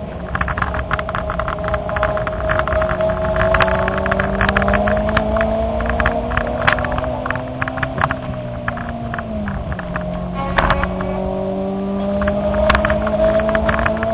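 Car engine heard from inside the cabin, pulling hard on a racetrack, its pitch slowly climbing. A little past the middle the pitch drops for a gear change or a lift, then climbs again, with frequent rattling clicks throughout.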